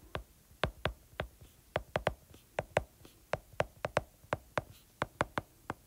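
Stylus tip clicking and tapping on a tablet's glass screen during handwriting: an irregular run of sharp little clicks, about four a second.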